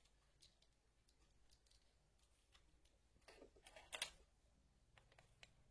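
Near silence broken by faint clicks from handling a small unscrewed plastic two-pin mains plug and its cable, with a short cluster of clicks and a brief scrape about three and a half to four seconds in.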